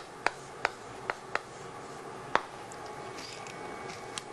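Chalk tapping and scratching on a chalkboard as Korean letters are written: about five quick, sharp taps in the first second and a half, then one more a little later.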